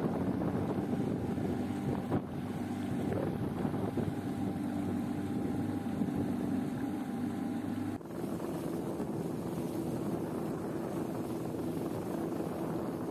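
Tiller-steered outboard motor running steadily at speed, driving a small flat-bottomed boat, with water rushing past the hull and wind on the microphone. About eight seconds in, the engine note briefly dips, then settles slightly higher.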